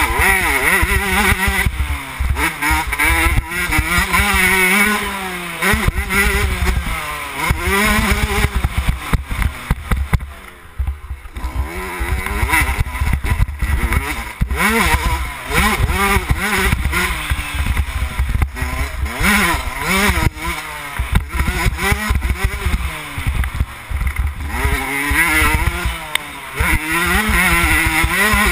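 2011 Yamaha YZ125's 125 cc single-cylinder two-stroke engine revving hard under riding, its pitch rising and falling over and over as the throttle is worked, with a short off-throttle lull about ten seconds in. Heavy wind rumble on the microphone underneath.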